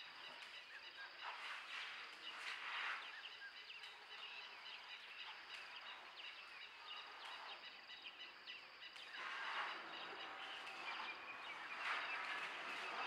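Many birds chirping and calling at once in a morning chorus over a steady outdoor hiss. The chirping swells in louder patches a few times.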